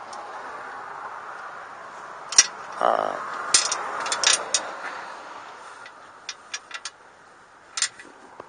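Irregular sharp metallic clicks and clinks of a wrench working the oil pan bolts of a 2004 Saturn Ion: a cluster of them a few seconds in, a few lighter ticks later and one more near the end, over a faint steady background hiss.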